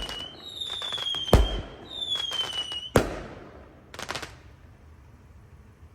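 Fireworks: two whistling shells, each a falling whistle of about a second that ends in a loud bang, the bangs about a second and a half apart. A brief crackle follows about four seconds in, then the sound dies down.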